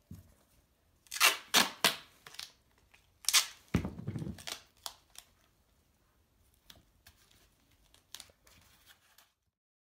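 Duct tape being pulled off the roll in several short, loud rips over the first few seconds, then fainter crinkles and taps as the strip is pressed around a sock-covered foot. The sound cuts off suddenly near the end.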